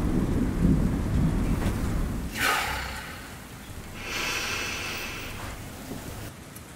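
Rainstorm sounds: a low rumble of thunder for the first couple of seconds that dies away, then the hiss of rain, which swells for a second or so about four seconds in.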